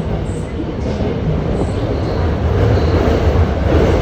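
Tokyo Metro Hanzomon Line subway train running on the rails: a steady rumble of wheels and car body, growing louder through the second half.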